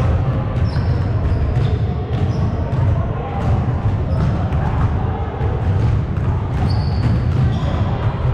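Gym sounds over a steady low rumble: scattered thuds of a ball bouncing on the hardwood floor and several short high sneaker squeaks.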